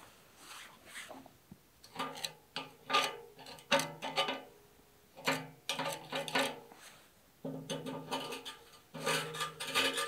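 A metal hand tool scraping against a black sheet-metal box in irregular strokes, some with a low ringing hum from the metal. The strokes are loudest about four seconds in and near the end.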